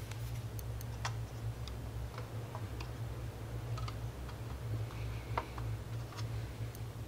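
Metal tweezers clicking and tapping against small plastic model-kit parts as they are set into the hull: a few light, irregular clicks over a steady low hum.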